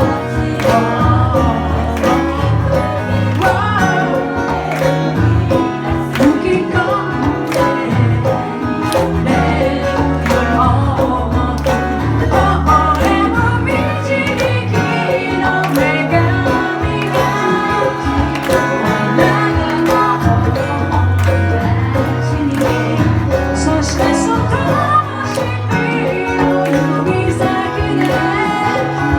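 A live band plays a song with a woman singing over guitar, bass and drums.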